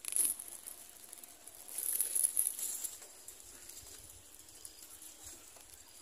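Dry grass nest material of a society finch nest rustling and crackling as the finch moves in it: a short spell near the start and a longer one about two seconds in.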